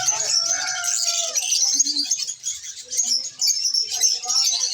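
Lovebirds chattering: a steady stream of rapid, shrill chirps and squawks from several birds.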